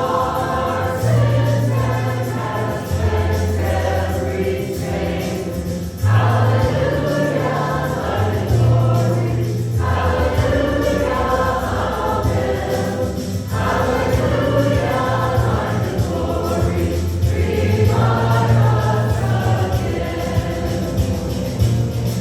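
Christian worship song: a group of voices singing together over instrumental backing with a sustained bass line, phrase after phrase.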